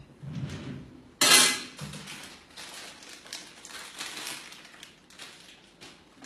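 Rustling and clattering of objects being handled, with a sudden loud burst about a second in and a run of smaller rustles after it.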